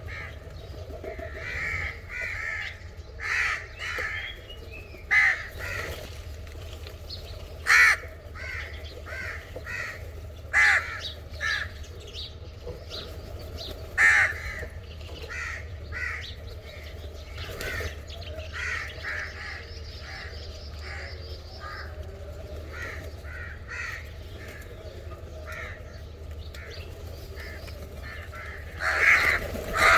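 Crows cawing repeatedly: short harsh caws in irregular runs, with a few much louder single caws standing out, over a steady low rumble.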